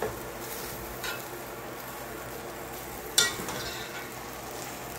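A spoon stirring rice in a cooking pot, with a light clink about a second in and a sharper, louder knock against the pot a little after three seconds in, over a steady hiss from the hot pot.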